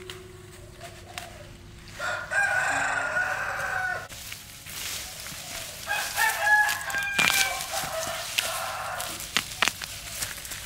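Rooster crowing twice: one long call about two seconds in and another about six seconds in. A few sharp knocks near the end.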